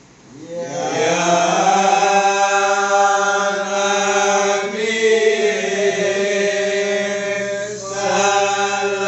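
Group of men chanting marhaban, Malay Islamic devotional verses in praise of the Prophet, sung together in long drawn-out notes. The voices come in about half a second in after a short pause for breath and dip briefly near the end before carrying on.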